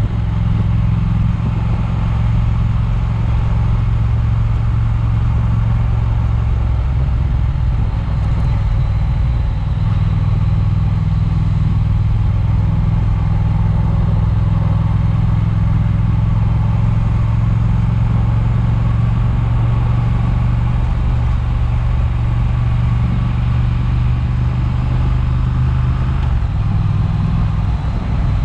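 Triumph motorcycle engine running steadily while riding, with wind noise on the chest-mounted camera. The engine note changes about seven seconds in and again near the end.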